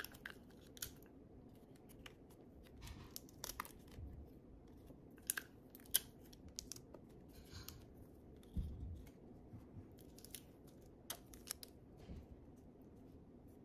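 Small crafting noises: sticky tape and a small photo handled on a table, with scattered sharp clicks and a few short rasping tears. The sharpest click comes about six seconds in.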